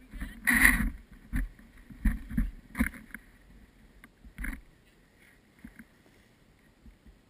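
Irregular scuffs and thumps of a ski boot and ski shifting in snow right at a body-mounted camera, with clothing rubbing. The loudest comes about half a second in, followed by a few smaller knocks, and it settles after about five seconds.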